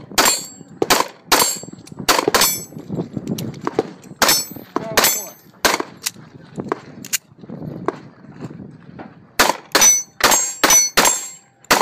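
Springfield Armory XDS .45 ACP pistol firing at steel plates, a shot every second or so with some hits ringing off the steel. Near the end comes a fast string of about five shots in under two seconds.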